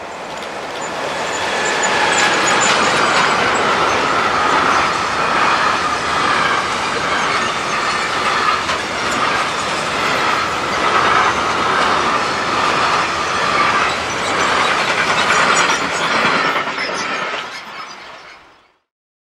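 Electric freight train passing close by: a Traxx locomotive followed by a long rake of covered sliding-wall wagons rolling past. The wheel-on-rail noise builds over the first two seconds, stays loud with a steady ringing note from the wheels, then fades out quickly near the end.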